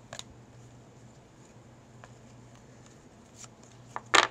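Trading cards being handled, with a few faint clicks and then a short burst of sharp clacks about four seconds in as cards are set down on a table, over a steady low hum.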